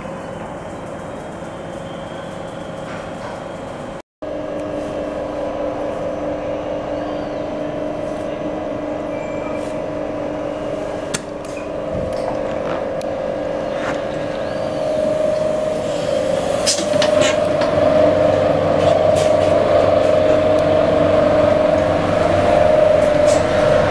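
A CAF articulated electric train standing at a station platform, its onboard equipment giving a steady electrical hum that gets louder in the second half. Scattered clicks and knocks and people's voices come through over it, and the sound breaks off briefly about four seconds in.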